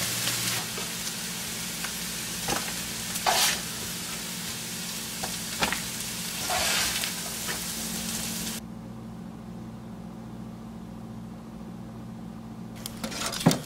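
Fried potatoes sizzling in a hot frying pan as a spatula scrapes them out, with several short scrapes over the hiss. The sizzling cuts off suddenly about two-thirds of the way through, leaving a low steady hum.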